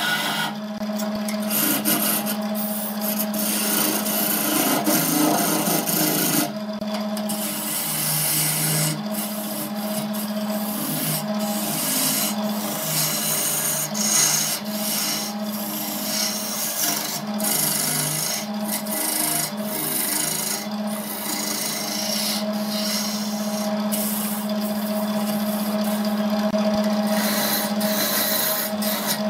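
Wood lathe running with a steady hum while a hand-held turning tool cuts into the spinning wooden blank, making a continuous scraping hiss as shavings come off. The scraping breaks off briefly a few times when the tool lifts.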